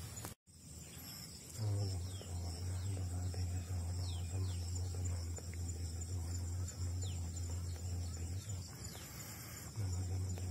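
Insects chirring steadily at a high pitch, with a loud steady low hum that comes in about a second and a half in and fades out near the end. The sound cuts out briefly about half a second in.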